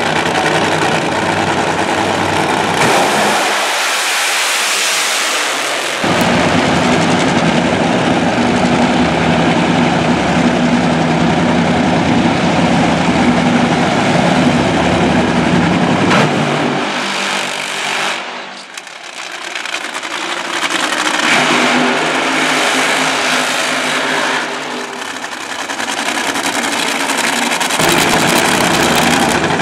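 Very loud supercharged nitromethane V8 engines of drag-racing Funny Cars running at the starting line, with a Funny Car doing a burnout near the end. The sound comes in several stretches that cut suddenly from one to the next.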